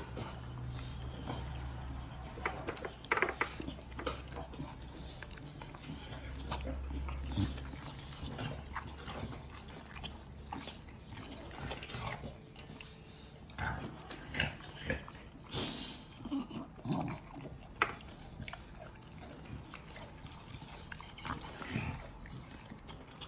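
An American Bully dog eating meat and bones from a bowl: wet chewing with short sharp crunches scattered through, coming thicker in the second half.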